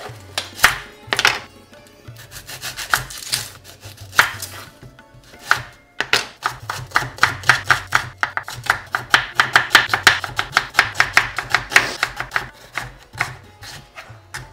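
Knife thinly slicing onions on a chopping board: a few separate cuts at first, then a quick, even run of cuts about halfway through, slowing again near the end.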